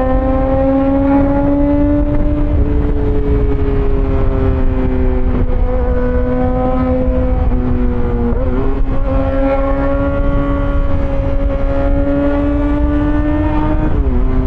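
Yamaha XJ6 S inline-four running through an SC-Project exhaust while riding. The engine note climbs slowly, with brief dips in pitch about 8 and 14 seconds in. Wind rumble sits underneath.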